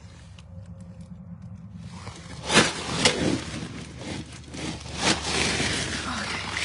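Scraping and rustling, with sharp knocks about two and a half, three and five seconds in.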